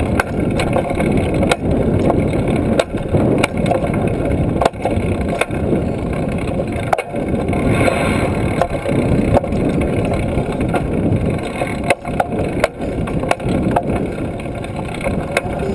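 Rushing wind noise on the handlebar-mounted microphone while a trail-a-bike rolls along. Through it come frequent uneven clicks and knocks from the bike rattling over the path.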